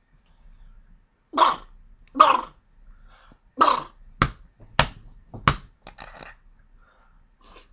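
A man with a heavy cold sneezing in his sleep, six loud sneezes in about four seconds. The first three are longer and the last three short and sharp.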